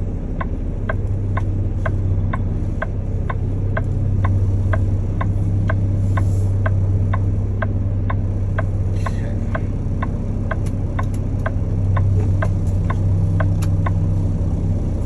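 Semi truck's diesel engine running low and steady, heard from inside the cab, with the turn-signal clicker ticking evenly about twice a second.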